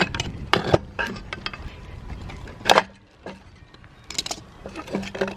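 Scattered metal clinks and knocks from hand tools and chainsaw parts being worked during disassembly, with a louder clank near the middle.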